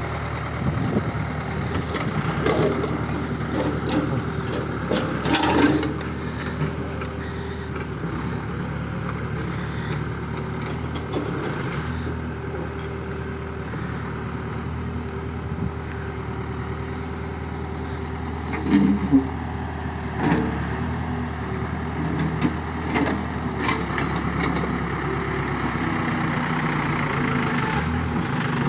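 A backhoe's engine running steadily at idle, with scattered knocks and clanks, busiest in the first few seconds and again around two-thirds of the way through.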